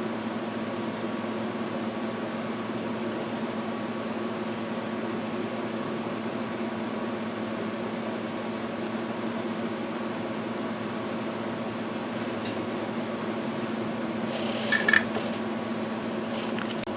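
A steady machine hum with a faint constant tone, like a small fan or motor running, with a few brief clicks about three seconds before the end.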